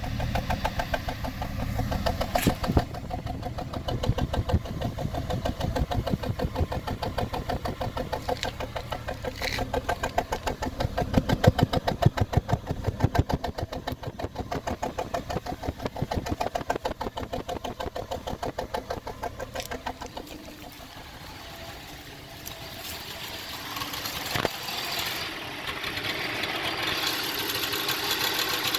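2004 Cadillac SRX engine idling roughly, a fast pulsing beat that rises and falls unevenly in loudness. Later the pulsing drops away into a steadier hiss, with one click partway through.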